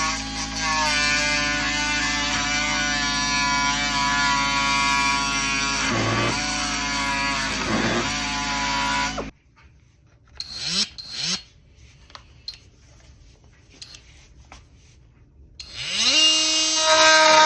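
Ridgid oscillating multi-tools running: a steady high whine with two short dips in pitch, as if briefly bogging under load while cutting a drywall screw. It cuts off suddenly about nine seconds in. After a quieter gap with a few clicks, a multi-tool spins up near the end and settles into a steady whine.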